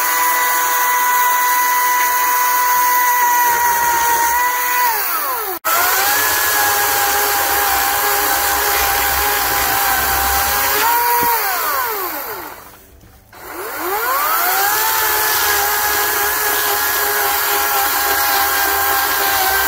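EGO battery-powered 18-inch chainsaw's electric motor and chain running with a steady high whine, which winds down and breaks off abruptly about five seconds in. It resumes at a lower pitch while the chain cuts through a log. The saw winds down to a stop past the halfway point, then spins back up with a rising whine and cuts again.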